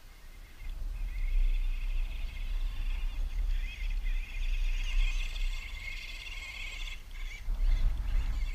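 Small 1:12-scale electric RC buggy driving over dirt, its motor giving a wavering high whine that rises about a second in and cuts out near the end, followed by a few rough knocks as it goes over the mounds. Wind rumbles on the microphone throughout.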